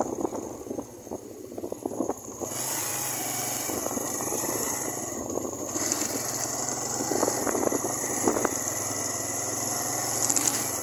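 Suzuki GN125's single-cylinder four-stroke engine running steadily while the motorcycle is ridden. Wind noise on the microphone comes in about two and a half seconds in.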